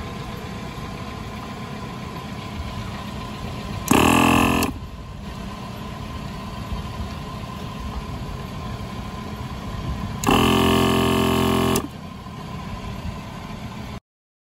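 AutoSmart 12V portable piston air compressor running steadily while inflating a car tire. Over it, two loud honks of a vehicle horn: a short one about four seconds in and a longer one about ten seconds in. The sound cuts off suddenly near the end.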